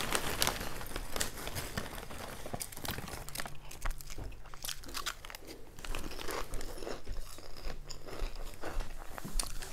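Close-miked chewing and biting of bacon sriracha French fries, with short crunchy clicks, mixed with the crinkling of a paper food wrapper being handled.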